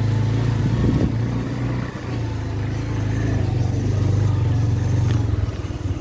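Road vehicle engine running steadily under way, easing off briefly about two seconds in.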